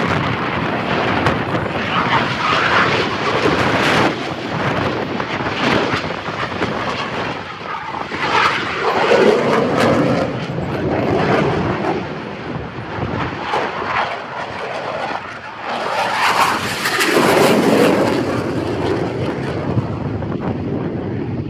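Aircraft engine noise from a display plane flying past, a loud rushing sound that swells and eases several times, mixed with wind buffeting the microphone.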